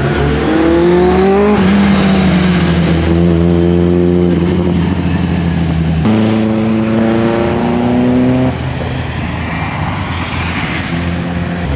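A hillclimb-prepared VW Polo accelerating hard at full throttle, its engine note climbing in each gear and dropping quickly at every upshift as the car passes. After about eight and a half seconds the engine is quieter and more distant, mixed with road noise.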